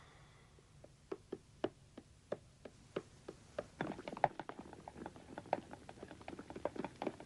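A run of light, irregular taps and knocks, a few a second, getting busier and louder about halfway through.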